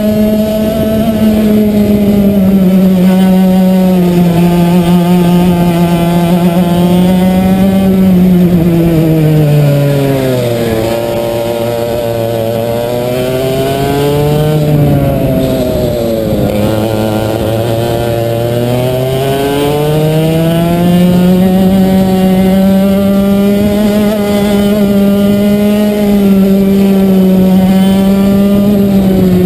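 Racing kart engine heard from on board, running at high revs. About ten seconds in the revs drop away as the kart slows for a corner, stay low for several seconds, then climb back up as it accelerates out and holds high again.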